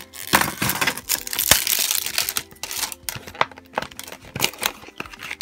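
Thin plastic shrink-wrap band crinkling and tearing as it is peeled off a plastic cup's domed lid, in irregular crackles and sharp clicks, densest in the first couple of seconds.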